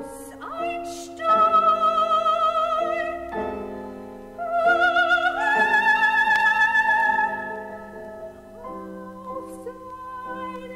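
Soprano singing an art song with piano accompaniment: two long phrases with wide vibrato, the second held on a higher note, then the piano carries on alone for the last couple of seconds.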